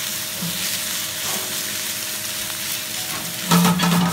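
Chicken and vegetables sizzling in a hot wok on a gas burner while a rubber spatula stirs and tosses them, with a steady hiss. About three and a half seconds in there is a louder run of scraping and knocking.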